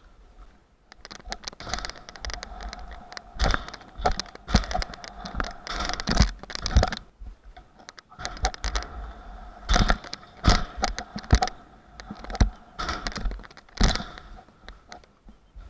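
Skateboard wheels rolling over concrete with a steady hum, broken by repeated sharp clacks and slaps of the board hitting and landing. There are two runs, with a short lull about halfway through.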